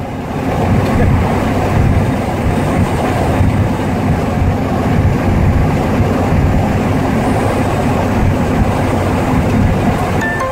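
Steady rumble of a pickup truck driving down the road, heard from inside the cab: engine, tyre and wind noise with a low hum.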